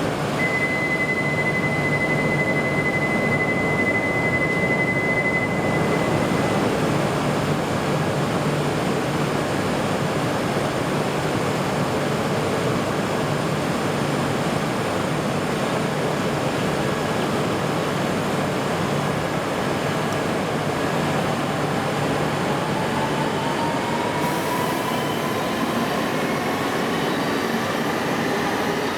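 Tohoku Shinkansen E2 series train moving off at an underground platform: a steady rushing run noise, with a motor whine that rises in pitch over the last several seconds as it gathers speed. A steady high tone sounds for the first few seconds.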